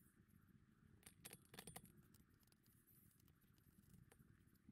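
Near silence, with a few faint light clicks about a second and a half in from small metal engine parts being handled on a cylinder head.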